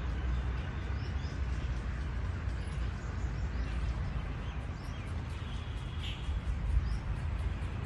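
Faint bird chirps, a few short calls scattered over a steady low rumble of outdoor background noise.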